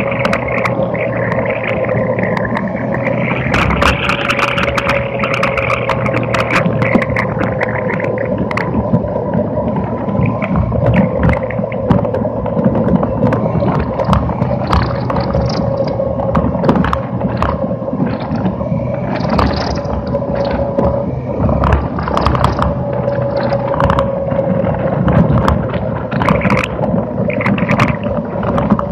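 On board an Electrathon electric race car: a steady whine from the electric motor drive that sags and rises slightly with speed. Under it runs a hiss of tyres and road noise on a wet track, with frequent sharp clicks and rattles from the lightweight chassis.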